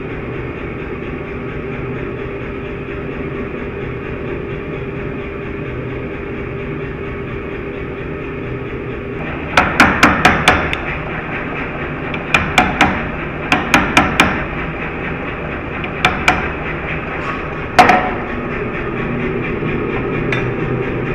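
A steady forge drone, then from about halfway in, hand-hammer blows on red-hot steel at the anvil: several quick runs of strikes, then two single blows. The steel is a folded blister-steel billet being forged into shear steel.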